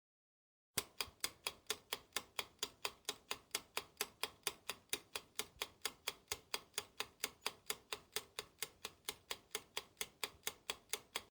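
Ticking clock sound effect: sharp, even ticks about four to five times a second. It starts suddenly about a second in and cuts off abruptly near the end, as a quiz countdown timer would.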